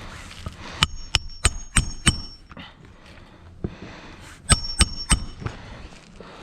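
Hammer blows ringing on metal, like nails being driven: a run of five quick strikes, then three more about two seconds later.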